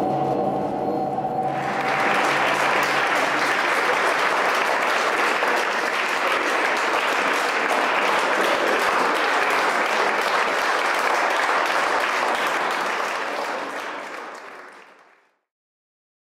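Audience applauding: dense, steady clapping that starts about a second and a half in and fades away near the end.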